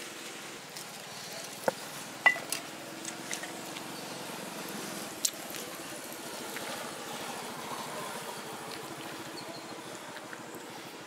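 A small engine running steadily in the background, with a few sharp clicks, the loudest a little over two seconds in and another about five seconds in.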